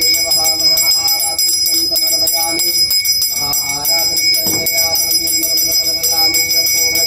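A puja bell ringing continuously during the harathi (aarti), struck rapidly and evenly, with voices chanting over it.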